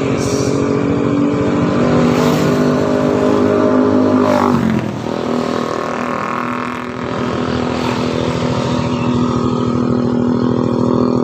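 Motorcycle engine running steadily at low speed, close up. It drops in pitch about four and a half seconds in, then holds steady again.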